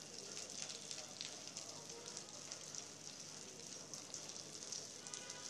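Steady rain falling on wet paving and puddles: an even fizzing hiss full of small drop ticks.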